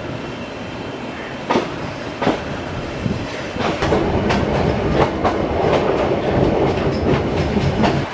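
Passenger train carriage running on the track, heard from inside: a steady rumble with irregular sharp clacks and knocks from the wheels and the rattling carriage. It grows louder from about halfway as the train picks up speed.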